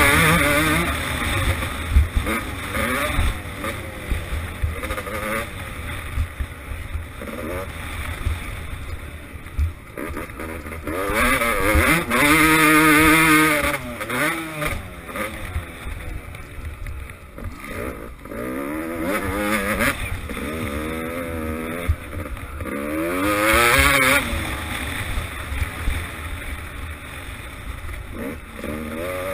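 Dirt bike engine revving up and down repeatedly while being ridden around a motocross track. The loudest, highest-pitched pulls come near the start, around twelve seconds in and around twenty-three seconds in.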